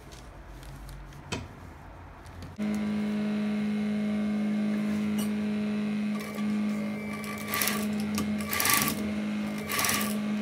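Industrial sewing machine: its motor switches on about two and a half seconds in and runs with a steady hum, with a few short bursts of stitching near the end.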